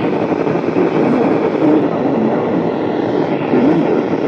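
Weather radio receiver playing a noisy broadcast: a steady loud hiss of static with a faint, garbled voice wavering underneath.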